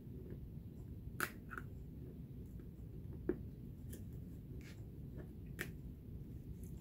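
Low steady room hum with a few faint, scattered clicks and taps from hands handling the craft pieces.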